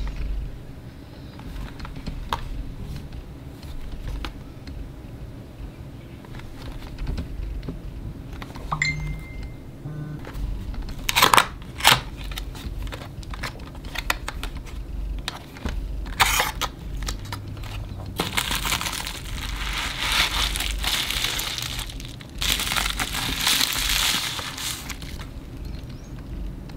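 Hands opening a printer's cardboard box: paper and card rustling with scattered clicks, a couple of sharp loud snaps about halfway as the flap and tab are pulled open, then a long stretch of packaging crinkling as the printer is taken out.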